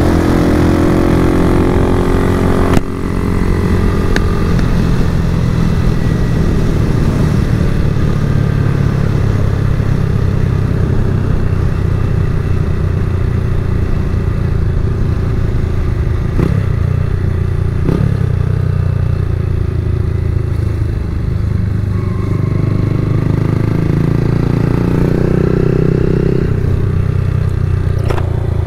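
Single-cylinder Honda motorcycle engine heard from the rider's seat, revving up with rising pitch, then running steadily at road speed with wind rushing over the microphone. Two short sharp clicks come about halfway, and the engine pitch rises again near the end.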